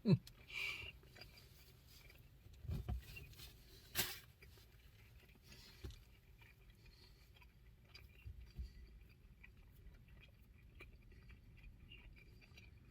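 A man eating a bite of a bacon, egg and cheese flatbread sandwich: faint chewing with scattered small clicks and soft thumps from handling the sandwich, and one sharper click about four seconds in.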